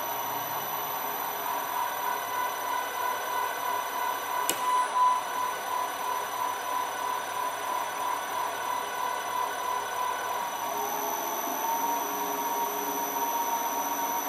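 Three-phase induction motor running on an Eaton M-Max frequency inverter at reduced speed: a steady electrical whine with a wavering, pulsing tone. About ten seconds in, lower hum tones come in and the tone shifts as the speed is adjusted with the potentiometer.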